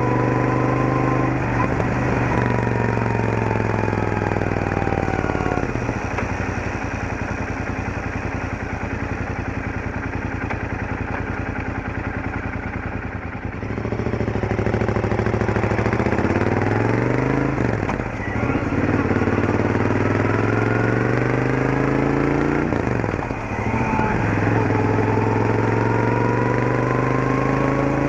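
Royal Enfield Interceptor 650's parallel-twin engine through its stock exhaust on a slow ride. It pulls up through the revs, eases off and runs steadily for several seconds, then accelerates again through several upshifts. Each shift is a brief dip before the revs climb again, and a high gear whine rises with the engine.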